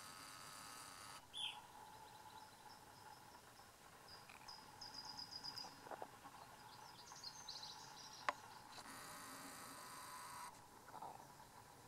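Quiet outdoor ambience: a faint insect trill for about the first second and again for a couple of seconds near the end, a few quick bird chirps in the middle, and one sharp click about eight seconds in.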